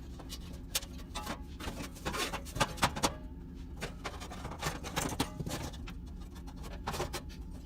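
Scattered light clicks and taps, irregular and a few a second, from hands handling the oven igniter's wires, wire nuts and metal parts, with a steady low hum beneath.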